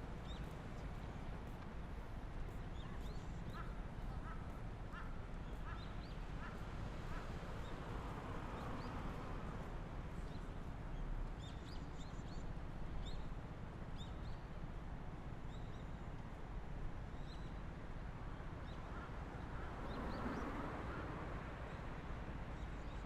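Outdoor ambience: a steady low wind rumble with scattered short chirps of birds, and two soft swells of a fuller sound, one about eight seconds in and one near the end.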